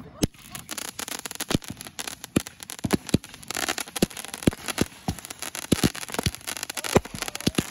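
Consumer fireworks going off: an irregular run of sharp pops and bangs over a steady crackle, with a loud bang near the end.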